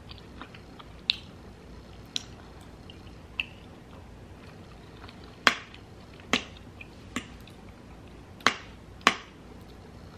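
A metal fork clinking against a ceramic plate as vegetables are picked up: about eight sharp clinks spread out, the loudest three in the second half, with quiet chewing between them.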